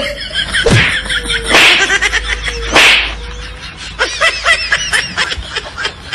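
People laughing, with two loud, harsh outbursts in the first three seconds and high-pitched giggling toward the end.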